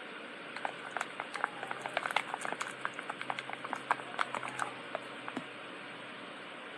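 Wooden stick stirring a hand-soap and salt slime in a container, making quick, irregular clicks and squelches several times a second as the slime starts to thicken. The stirring stops about five and a half seconds in.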